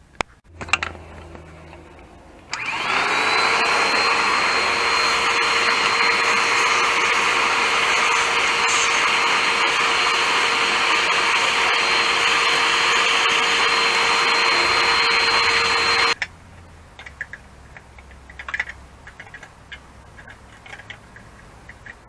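Small portable household vacuum cleaner switched on about two and a half seconds in, spinning up to a steady whine as it sucks up drilled metal particles. It runs for about fourteen seconds, then cuts off suddenly.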